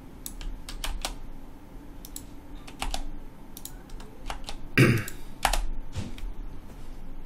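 Computer keyboard keys clicking in scattered strokes, with one louder thump a little before five seconds in.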